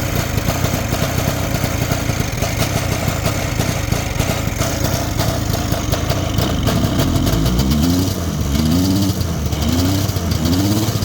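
1971 Ski-Doo Olympic snowmobile's two-stroke engine running steadily, then revved up several times in quick rising pulls from about seven seconds in.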